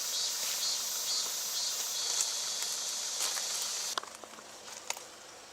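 Steady high-pitched chorus of insects that cuts off abruptly about four seconds in, followed by a few faint clicks.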